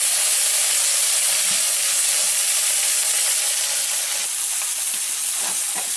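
Fish rubbed with salt and turmeric sizzling as they fry in hot oil: a steady hiss that eases a little about four seconds in, with a couple of faint taps near the end.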